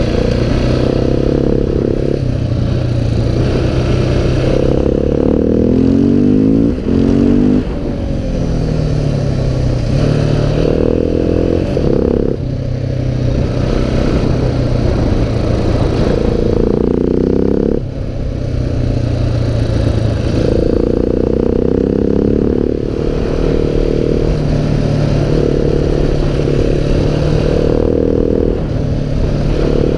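KTM 690 SMC R's single-cylinder four-stroke engine under way, revving up and down again and again through a run of bends, with a few short dips in level near 7, 12 and 18 seconds in.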